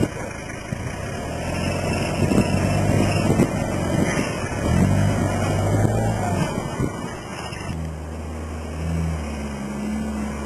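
A modified Toyota LJ70 Land Cruiser's engine working under load off-road, its pitch stepping up and down, with a few sharp knocks and rattles around two to three seconds in.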